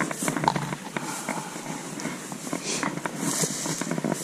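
Footsteps crunching and rustling through dry brush and grass, an irregular run of crackles and snaps.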